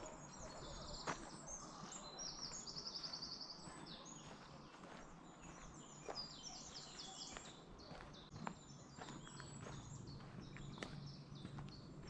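Several woodland birds singing in short, varied phrases and chirps, with a fast trill about a second in. A few faint sharp clicks are scattered through it.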